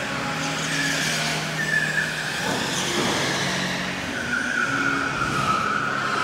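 Go-karts running around an indoor track, tyres squealing through the turns over a steady hum from the karts.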